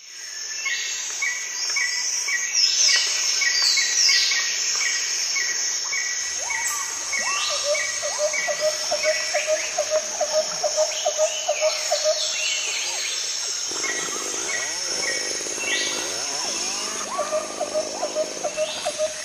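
Rainforest ambience: birds calling over a steady high insect buzz. There are runs of short repeated chirps and some gliding calls, and a fast pulsing trill of lower notes in the middle and again near the end.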